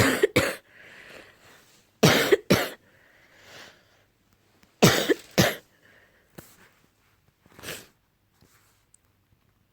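Morning coughing fit in three loud double coughs about two and a half seconds apart, with drawn breaths between them, tailing off into a couple of weaker coughs. The uploader puts the cough down to allergy.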